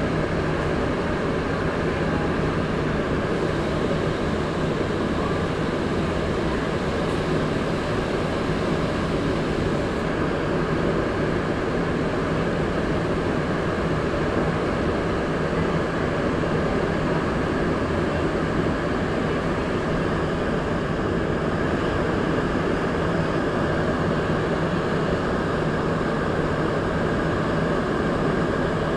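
MR-73 rubber-tyred metro train running at steady speed through a tunnel, heard from inside the car: a constant rumble with a steady hum in it and no change in pace.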